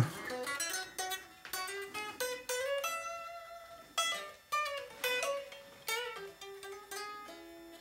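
Electric guitar, a Strat-style partscaster, played in a short improvised run of plucked single notes and chords with some notes left ringing. The player is trying out the action after shimming and re-setting the neck, and judges it "a bit better now".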